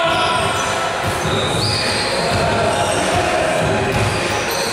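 Basketball being dribbled on a gym floor, a low thud every half second to a second, over steady indoor background noise, with a brief high squeak about a second and a half in.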